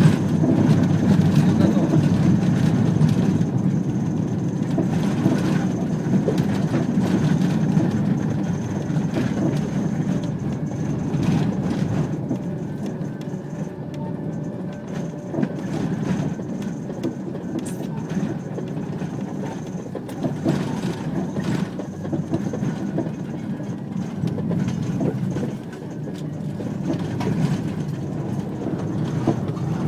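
A car in motion heard from inside, its steady road and engine noise broken by occasional knocks and rattles from the road surface.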